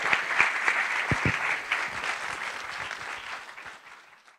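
Audience applauding, dense clapping that fades over the last second and then cuts off abruptly. Two dull low thumps come about a second in.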